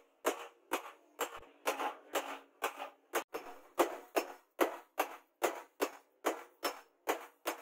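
Hand hammer blows on a red-hot steel cleaver blank on an anvil, struck steadily a little over twice a second, each blow with a short metallic ring.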